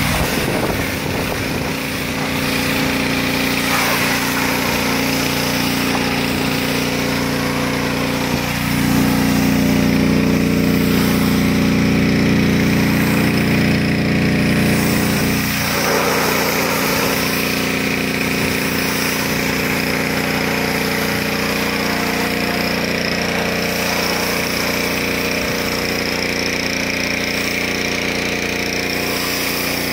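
Pressure washer running steadily while water sprays onto a car, its motor note shifting about a third of the way in and again about halfway through.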